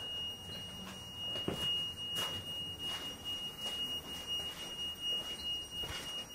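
Footsteps on a gritty concrete floor, a step every half second or so, under a steady high-pitched tone.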